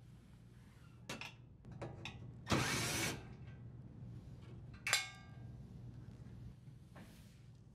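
Cordless drill driver running briefly, about half a second, as it backs out a toe kick screw, with a few small clicks of handling around it. About two seconds later comes a single sharp metallic clink that rings briefly.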